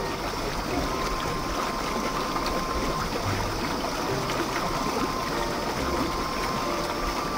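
Steady rushing of flowing water, an even, unbroken sound like a small stream.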